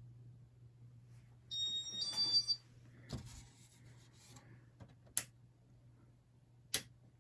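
Electronic beeps from a Casablanca ceiling fan's IntelliTouch control, two short high beeps in quick succession about two seconds in. A steady low hum runs underneath, with two sharp clicks near the end.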